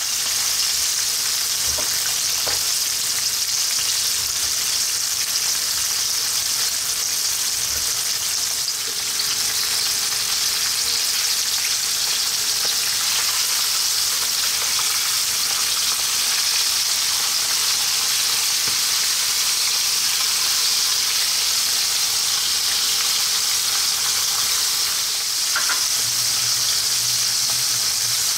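Flour-dusted whole sardines shallow-frying in hot sunflower oil in a skillet: a steady, even sizzle.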